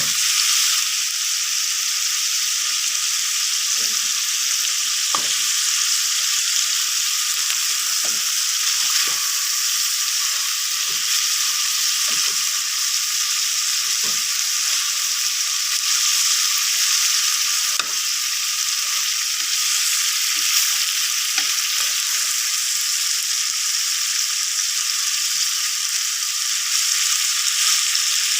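Food frying in hot oil in a pan, a steady sizzle, stirred with a utensil that knocks against the pan now and then, mostly in the first half.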